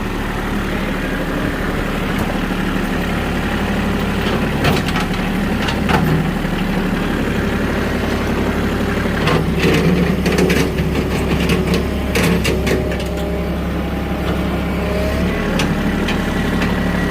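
Engine of the vehicle towing a skid steer on a chain, running steadily and pulling harder at times, with scattered sharp knocks and clanks.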